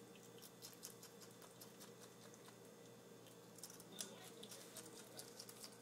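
Pet striped skunk eating cauliflower crumbs off a tile floor: faint, crisp clicks of chewing in two flurries, with one sharper tick about four seconds in.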